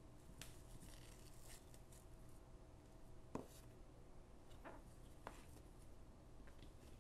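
Faint taps and scrapes of a plastic bench scraper cutting through soft bread dough and pressing onto a silicone mat: a few separate short strokes, the clearest about halfway through, over a low room hum.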